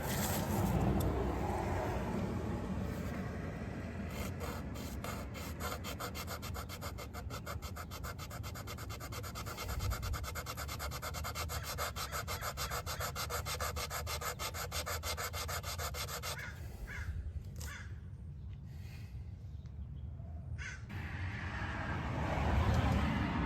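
Carbon motor brush being sanded down by hand for a better fit in a power window motor's brush holder: rapid, even back-and-forth rubbing strokes that start a few seconds in and stop about two-thirds of the way through.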